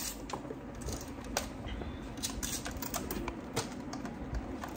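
Scattered light clicks and taps at irregular intervals, as small hard objects are handled and set down.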